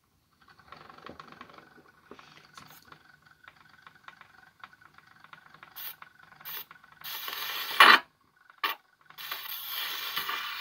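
Horn gramophone's soundbox being handled and its needle set down on a spinning 78 rpm record. Faint rubbing and scratching come first, then a loud scrape about eight seconds in as the needle meets the disc. The steady crackling hiss of the needle running in the groove follows, heard through the horn.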